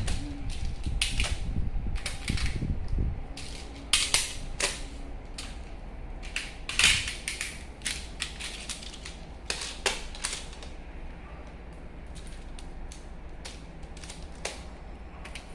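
Plastic magnetic building tiles clicking and clacking as they snap together and are handled: irregular sharp clicks, with louder clacks about four and seven seconds in.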